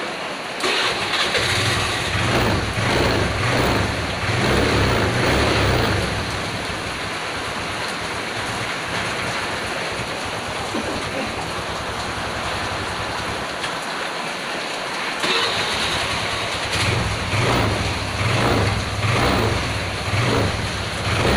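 A carbureted Honda Vario 110 scooter's single-cylinder four-stroke engine running. It is revved in a series of rises and falls starting about half a second in, settles to a steady idle, then is revved again in short blips near the end.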